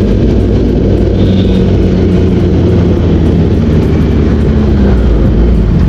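Kawasaki ZX-10R superbike's inline-four engine running at low revs while riding, easing off as the bike slows from about 50 to under 40 km/h.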